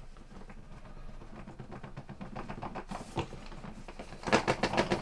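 Cardboard box being handled and slid against its cardboard sleeve: light rubbing and small clicks, then a quicker, louder run of scraping ticks about four seconds in.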